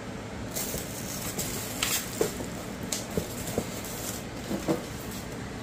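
Thin plastic wrapping crinkling and rustling as hands pull and press on it, with scattered light taps and clicks.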